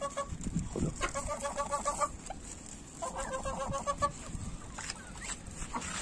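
Chickens clucking: three runs of quick repeated clucks, each lasting about a second.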